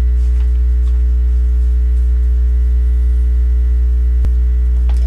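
Loud, steady electrical mains hum in the recording, with a single sharp click about four seconds in.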